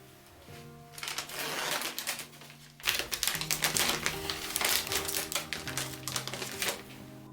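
Rapid, dense clicking and crackling from about a second in until shortly before the end, louder after about three seconds, over soft background music.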